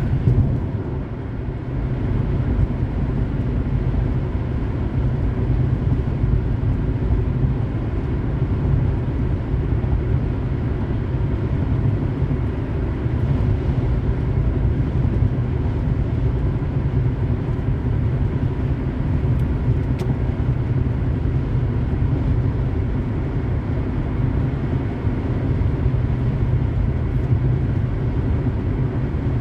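A car cruising on a highway, with a steady low rumble of road and engine noise.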